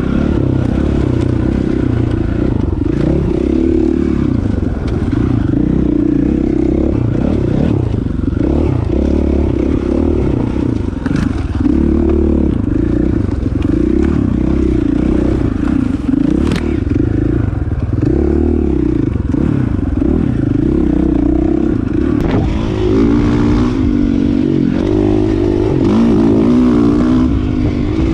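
Dirt bike engine revving up and down continuously as it is ridden over rough, rocky trail. A couple of sharp knocks stand out: stones or the trail striking the bike.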